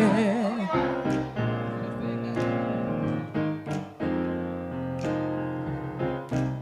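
Instrumental interlude of a gospel song: keyboard or piano playing sustained chords that change about once a second, with percussion hits and no singing.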